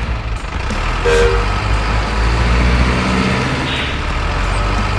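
Heavy truck engine sound running steadily at a low drone, with a brief two-note tone about a second in and a short hiss near the end.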